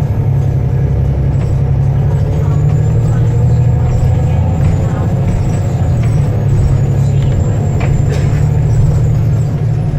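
Volvo B7TL bus's six-cylinder turbo-diesel engine running steadily, with a faint high turbo whistle that rises a little and then falls away in the second half.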